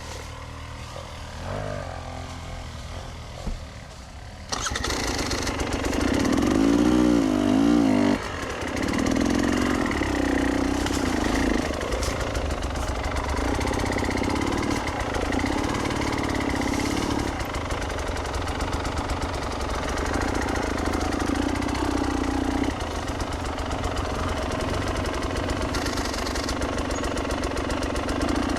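Enduro dirt bike engine running low, then jumping louder about four and a half seconds in. Over the next few seconds its pitch rises and falls quickly as the throttle is worked, and then it runs on with the revs going up and down.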